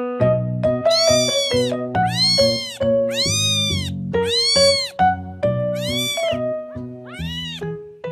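Kitten meowing repeatedly, about six high-pitched mews that each rise and fall in pitch, over background piano music.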